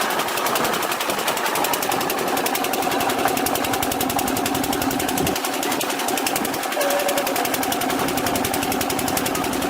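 A machine running with a fast, even rattle, about ten beats a second.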